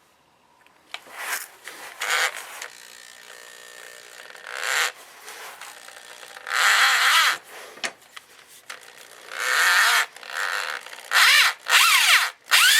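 Cordless drill running in reverse in a series of short bursts, spinning up and slowing with each squeeze of the trigger, as an easy-out bolt extractor bites into a broken-off shifter toe-peg bolt to unscrew it from the shift lever.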